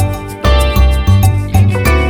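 Upbeat background music with a steady beat and a strong bass line.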